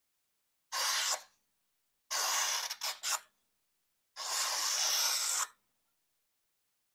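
A Divo Nip folding knife's S90V steel blade slicing through a sheet of paper in four strokes, each a dry hiss, the last the longest. The blade cuts cleanly in this sharpness test; it is very sharp.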